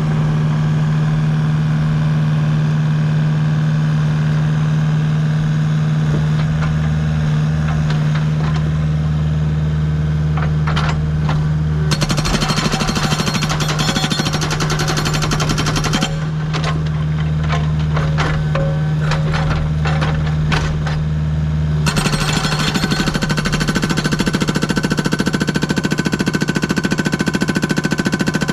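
Agrotk 680 hydraulic breaker hammer on a Kubota U55 mini excavator pounding rock in fast repeated blows, in two long runs: about 12 seconds in for some four seconds, and again from about 22 seconds in, with a few single strikes between. Under it the excavator's diesel engine runs steadily.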